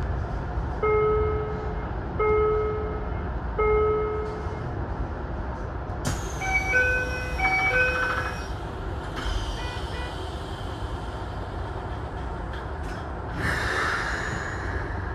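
Electric commuter train standing at a station platform with a steady low hum. An electronic chime of short tones sounds repeatedly: three alike in the first few seconds, then a quicker two-note figure midway. A brief rush of noise comes near the end.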